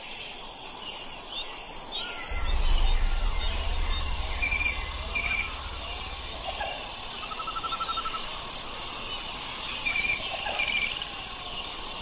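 Forest ambience: a steady high drone of insects with several birds calling over it in short repeated chirps and one brief trill near the middle. A low rumble comes in about two seconds in and stops about four seconds later.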